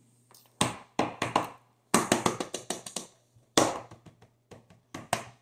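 Fingers popping the bubbles of a silicone pop-it fidget toy: quick runs of sharp pops in about five bursts.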